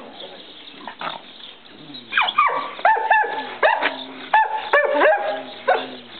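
Dogs yipping and barking: from about two seconds in, a quick run of about a dozen short, high calls, many of them sliding down in pitch.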